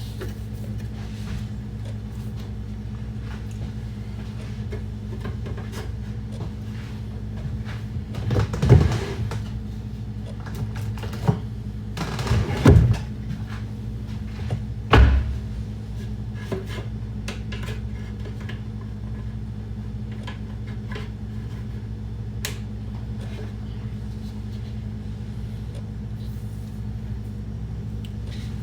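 A steady low hum with scattered small clicks and a few knocks and clunks of things being handled in a kitchen. The three loudest come a few seconds apart, about a third of the way through.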